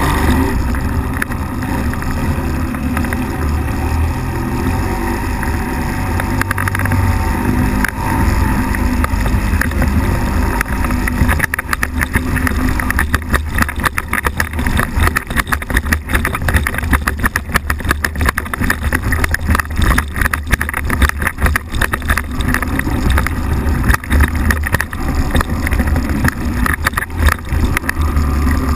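Flex-wing microlight trike's engine and pusher propeller running steadily, heard on board. From about twelve seconds in the sound turns rough and rapidly fluttering.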